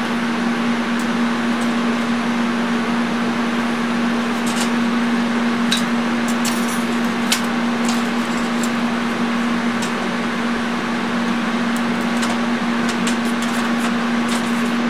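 Steady fan hum with a low drone. From about four seconds in come scattered light clicks and taps, with more near the end, as small metal items are handled on the steel welding table.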